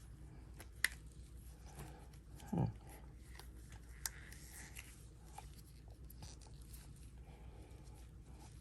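Faint handling sounds of small epoxy-resin castings being worked out of a silicone mold: light rubbing and ticks, with two sharp clicks, one about a second in and one about four seconds in. A brief murmur from a voice about two and a half seconds in.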